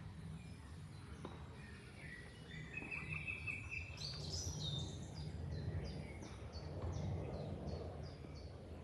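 Songbirds singing over a steady low rush of flowing water. A warbled phrase comes a few seconds in, followed by a run of short, high, falling notes repeated about three times a second.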